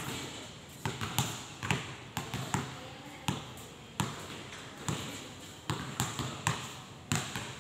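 Basketballs bouncing on a hard court as they are dribbled: sharp, irregular thuds, roughly one to two a second.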